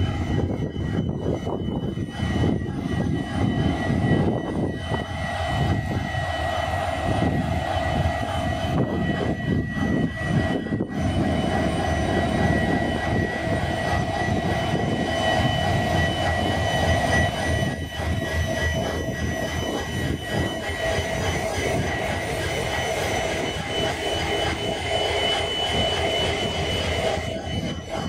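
WDP4B diesel-electric locomotive's EMD 16-cylinder two-stroke engine idling while the train stands, a steady low rumble with a high whine over it that grows a little stronger about a third of the way in.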